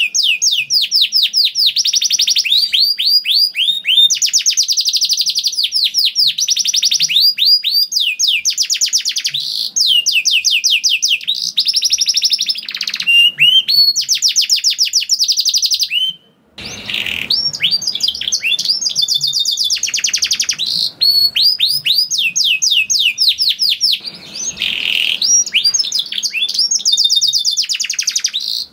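Canary singing a long, fast song of rolling trills, each built from rapidly repeated falling notes, switching to a new trill every second or two. The song breaks off briefly about halfway through, then carries on.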